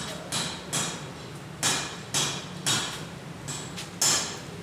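A series of sharp knocks, about eight at uneven intervals, over a steady low hum.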